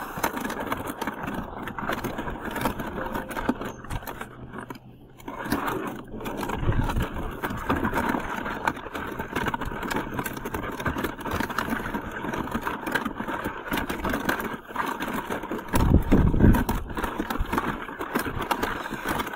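The wheels of a pushed IDS GeoRadar 4 Lite ground-penetrating radar cart rolling steadily over pavement, with a dip about a quarter of the way in and a louder low rumble for about a second and a half near the end.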